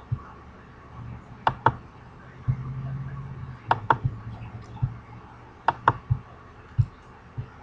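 Computer mouse button clicks, in three quick pairs about two seconds apart, with fainter ticks between. A low hum comes in near the middle and fades out about a second before the last pair.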